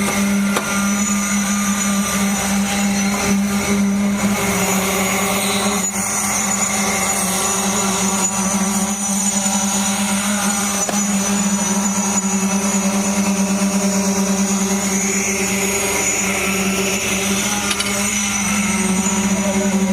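Machinery running with a loud, steady hum: a strong low drone with higher steady tones over it, unchanging throughout.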